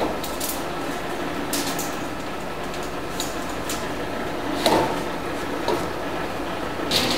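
Aluminum sheet being handled and positioned on a power shear's bed, giving scattered light clicks and taps with a brief clatter about halfway through, over a steady shop hum.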